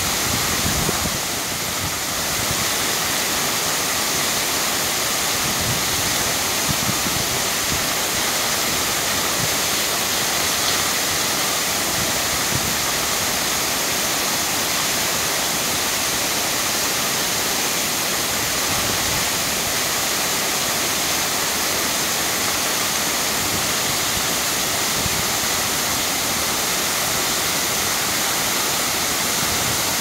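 A tall, wide waterfall in full flow pouring onto rocks: a steady, even rush of falling water that does not let up.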